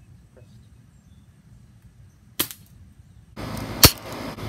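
Airsoft rifle, fitted with a homemade cardboard suppressor, fired once about two seconds in: a short, sharp pop. A steady hiss then starts suddenly, and a second, louder shot follows near the end.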